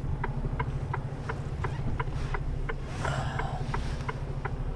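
Mercedes Antos lorry's diesel engine running, heard inside the cab, under the steady ticking of the turn indicator, about three to four ticks a second. A brief hiss about three seconds in.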